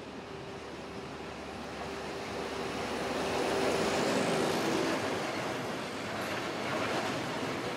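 A train drawing near. Its running noise swells to a peak about four seconds in, with a steady hum that stops about a second later.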